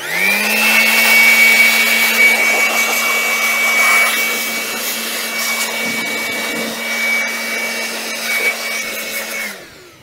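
Handheld electric blower spinning up, running steadily with a high whine over rushing air as it blows the dust out of a desktop PC case, then winding down near the end.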